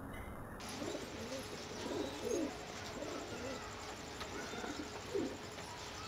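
A pigeon cooing in a string of low phrases, about five, the loudest about two seconds in, with faint high chirps of small birds behind.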